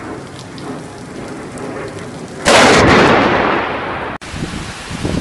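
Heavy rain falling steadily, then about two and a half seconds in a sudden, very loud thunderclap from a close lightning strike, a sharp crack that fades over more than a second. It cuts off abruptly near the end, giving way to quieter rain.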